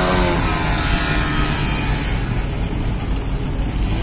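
Ship's engine running with a steady low rumble.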